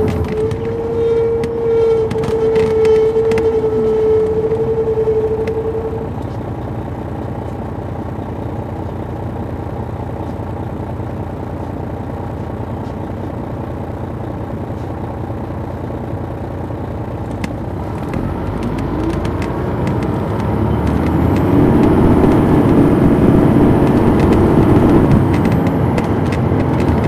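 Detroit Diesel Series 60 diesel engine of a 2002 MCI D4500 coach, heard from on board, running steadily, then growing louder with a shifting engine note from about two-thirds of the way through. A steady high tone sounds for the first six seconds.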